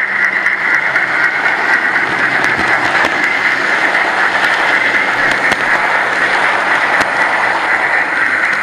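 Steady running noise of a model train heard close up from a camera riding on it: a constant whine from its motor and gears mixed with the rattle of wheels rolling along the track.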